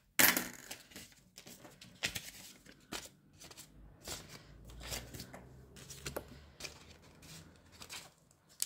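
Paper and envelopes being handled on a desk: rustling and crinkling, with a sharp snap just after the start and scattered small clicks and taps after it.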